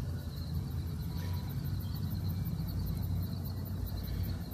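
A steady low rumble, with crickets chirping faintly and steadily behind it.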